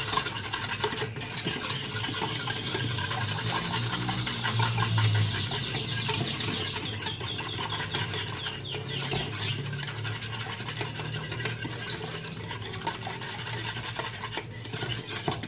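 Wire whisk stirring a thin liquid mixture of starch, sugar and instant coffee in a small saucepan, with continuous rapid scraping and swishing strokes against the pan.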